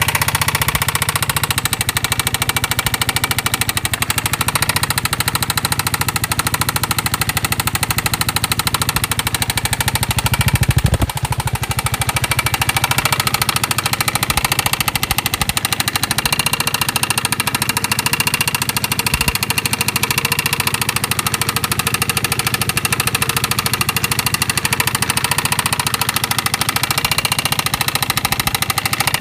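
Piaggio 250 cc single-cylinder scooter engine (MP3 / Vespa GTS 250) idling with a rapid, steady knocking, the engine fault the owner is recording. About ten seconds in it revs up briefly, then settles back to idle.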